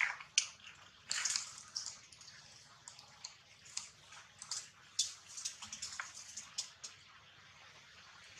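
Irregular short crackles and rustles of leaves and twigs, with a longer rustle about a second in and the crackling thinning out near the end.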